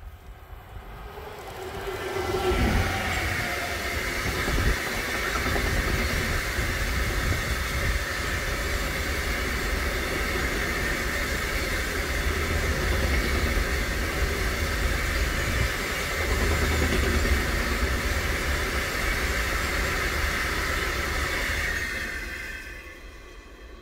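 Freight train hauled by an HVLE Stadler Eurodual (class 159) locomotive passing close by: the locomotive goes by about two seconds in with a falling pitch, followed by a long string of open box wagons rolling over the rails with a steady clatter that fades away near the end.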